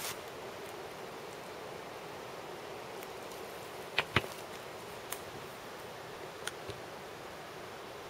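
Footsteps on dry leaf litter beside old rail track: two sharp crunching steps about four seconds in and a few lighter ticks after, over a steady outdoor hiss.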